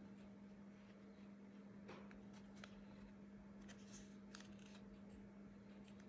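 Near silence: room tone with a faint steady low hum and a few faint, scattered small clicks.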